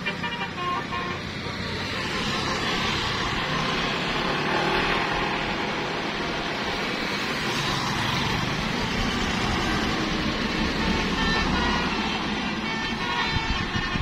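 Motorcycles riding through a bend in the road, their engines swelling in the middle as one passes close by.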